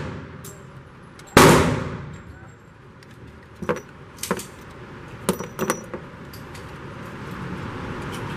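A single loud gunshot about a second and a half in, with a long echo in the enclosed range. Then a run of short metallic clinks as spent .44 Magnum cases are pushed from the revolver's cylinder with the ejector rod and drop onto the bench.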